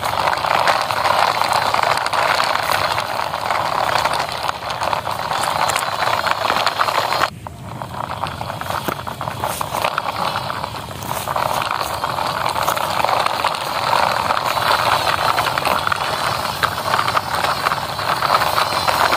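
Plastic toy cement mixer truck rolling over dry, cracked mud, its wheels and body rattling steadily. The rattle drops away briefly about seven seconds in, then resumes.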